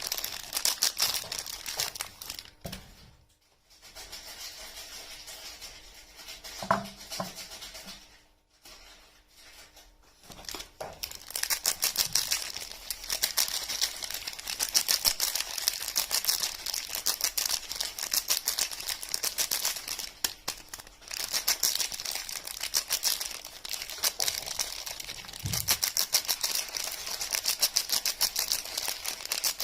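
Close, rapid crinkling and tearing of soap packaging being unwrapped: a dense crackle, with two short pauses about three and eight seconds in.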